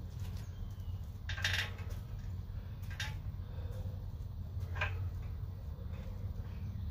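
A steady low hum with three short metallic clinks or knocks spread over a few seconds, the loudest about a second and a half in.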